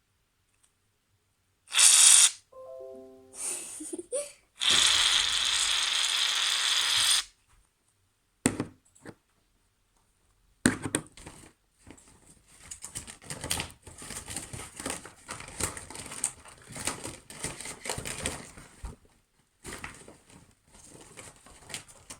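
Slime being squished and worked by hand, a long dense run of small wet clicks and pops from about halfway in. Earlier, a steady hiss lasts about two and a half seconds, after a short loud burst and a brief run of stepped tones.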